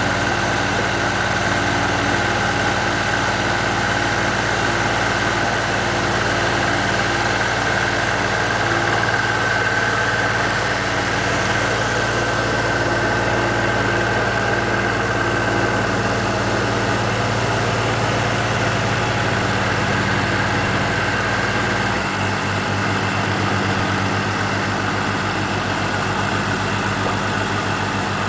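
Ebro 460 tractor's four-cylinder Perkins diesel running steadily while it powers the mounted crane, with a steady high whine over it. The whine stops about three-quarters of the way through, and the engine note changes at the same moment.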